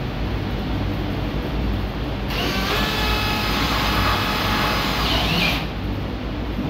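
A small electric motor, like a power tool's, runs with a steady whine for about three seconds in the middle, over a steady low hum.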